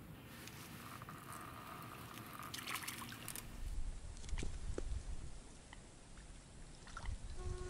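Water splashing and trickling as a fish takes the float bait and is struck and played at the surface, the splashing heaviest about three seconds in. Sharp clicks and low thumps follow as the rod and line are handled.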